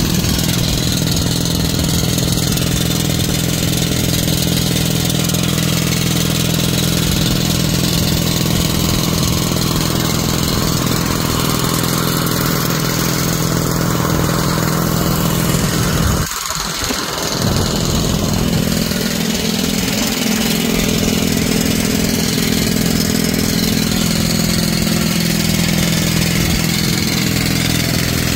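Crawler-mounted pneumatic drill rig drilling a blast hole in rock: a steady, loud mechanical noise from its engine and rock drill, with a brief dip about sixteen seconds in.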